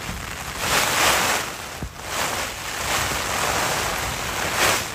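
Strong wind gusts buffeting the Hilleberg Nammatj 2 tent in a storm, heard from inside, with rain on the flysheet; the noise swells and eases in surges, with a short thud about two seconds in.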